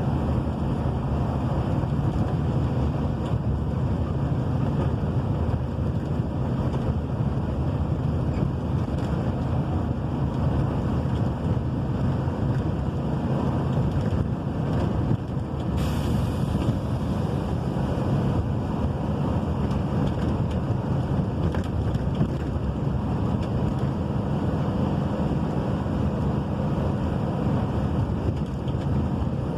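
Rain falling steadily: an even, dense rushing noise with no break.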